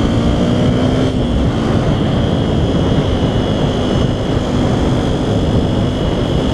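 Yamaha WR125X's single-cylinder four-stroke 125 engine running through a LeoVince LV One exhaust while riding, mixed with heavy wind rush on the microphone. The engine note drops in the first second, then holds steady.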